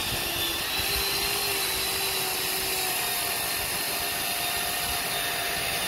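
Chainsaw running steadily, a constant motor drone with no break, while wind rumbles on the microphone.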